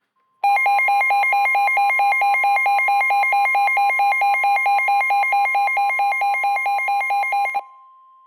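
Emergency alert attention signal announcing a severe thunderstorm warning: a loud electronic alarm warbling rapidly between two pitches, about four alternations a second, over a fainter steady tone. The warble cuts off suddenly about seven seconds in, and the steady tone lingers faintly.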